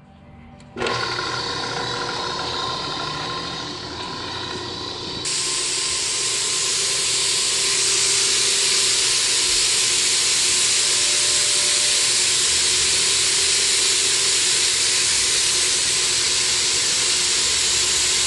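A Halla power sprayer, driven by an electric motor through a pulley, switches on about a second in and runs with a steady mechanical hum and several steady tones. About five seconds in, a louder, steady hiss of fine water mist from the spray boom's nozzles takes over.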